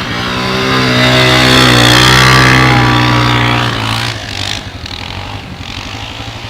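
ATV engine running at high revs as it passes close by, loudest about two seconds in and fading away by about four seconds. Another four-wheeler's engine idles underneath with a steady rapid putter.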